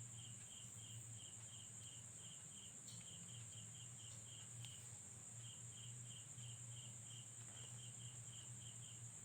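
Near silence: faint crickets chirping at about four chirps a second, with a few short gaps, over a steady high hiss and a low hum.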